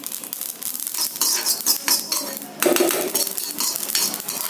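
Metal spatula scraping and clinking against a kadai while mustard seeds are dry-roasted in it without oil, the scraping growing louder about two and a half seconds in.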